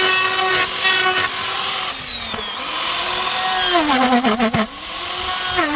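Electric power tool motor whining at a steady pitch, which sags twice as the tool bites into the wood under load and then recovers.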